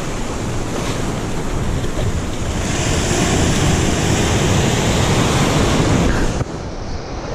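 Surf breaking and washing over rocks, with wind buffeting the microphone. The wash swells about two and a half seconds in, then drops off abruptly near the end.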